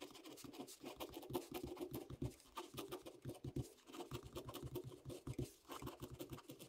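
Ballpoint pen writing on paper: a quick, faint run of short scratching strokes as capital letters are written out.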